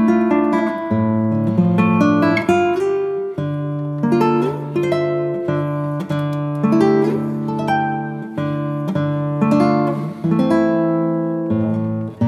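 Background music led by acoustic guitar: a run of plucked notes over held bass notes.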